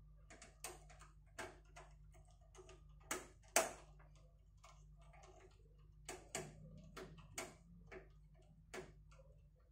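Irregular clicks and taps of a screwdriver and small metal parts as a screw is tightened into a PC cabinet, the loudest about three and a half seconds in, over a faint steady low hum.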